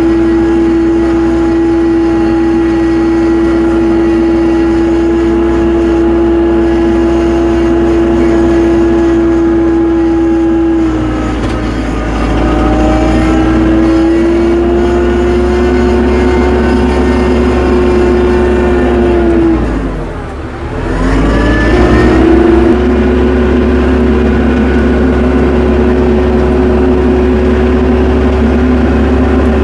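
Tractor engine running steadily at a high, even speed. About eleven seconds in its pitch dips and wavers. Around twenty seconds it drops sharply for about a second, then climbs back up and holds steady again.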